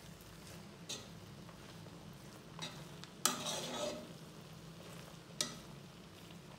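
A silicone spatula stirring and scraping rice against the sides of a metal pressure-cooker pot, in four separate strokes, the loudest a little past three seconds in. Under it a faint steady sizzle of the rice drying over the heat.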